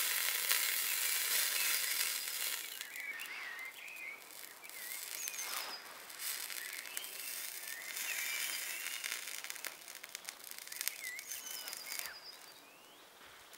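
Burning magnesium and strontium chloride hexahydrate mixture hissing, fading away over the first two to three seconds as the reaction burns out. Then birds sing in short, repeated warbling phrases.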